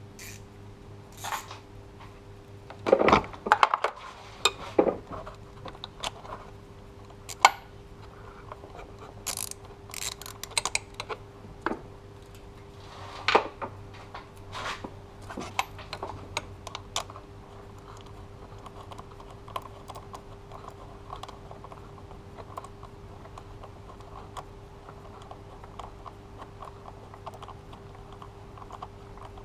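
Metal hand tools being handled in a car's engine bay: irregular clinks and clanks, loudest and busiest in the first half, then lighter scattered ticks.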